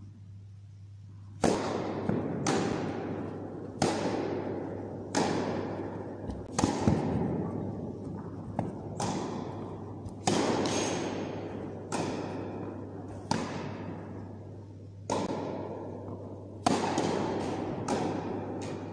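Tennis rally on an indoor carpet court: rackets striking the ball and the ball bouncing, a sharp pop roughly every second and a half from about a second and a half in. Each pop has a long echo from the hall.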